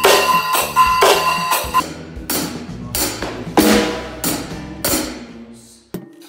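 Drums played with sticks: snare drum strokes and cymbal crashes, one or two loud strikes a second, each cymbal ringing on after the hit. The playing breaks off suddenly just before the end.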